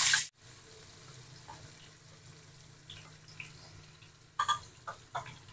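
Chopped onion sizzling loudly as it hits hot oil with cumin seeds and black pepper, cutting off abruptly just after the start. Then a faint sizzle, with a few light knocks and scrapes of a wooden spatula against the pan about four and a half seconds in.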